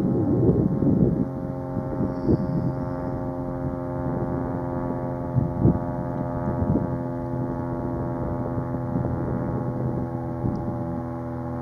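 Towboat's diesel engines droning steadily as it pushes barges, a constant many-toned hum. Gusts of wind buffet the microphone, strongest in the first second.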